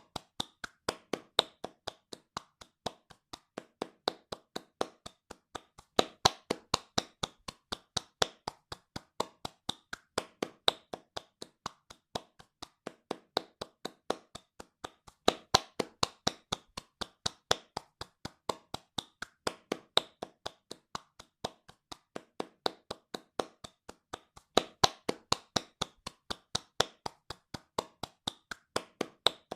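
A single pair of hands clapping fast and evenly, about four sharp claps a second, some claps louder than others.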